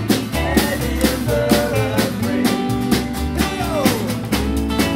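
Rockabilly band playing live: upright double bass, acoustic and electric guitars, and a drum kit keeping a snare-and-cymbal beat.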